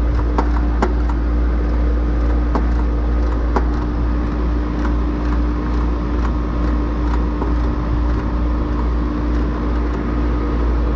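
Air-conditioner outdoor condensing unit running with a steady low hum, its compressor pumping the low-charge R-410A system down into the condenser ahead of a leak repair. A few faint ticks sound in the first few seconds.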